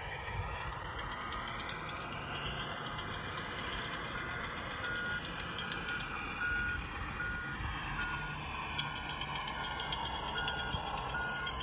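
Vehicle reversing alarm beeping at an even pace, about three beeps every two seconds, starting about four seconds in, over a steady engine-like rumble.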